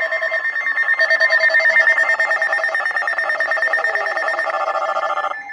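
Several phones sounding emergency alert tones at once: overlapping steady and rapidly pulsing electronic beeps, with one tone sliding slowly down in pitch. The alerts are for a snow squall warning.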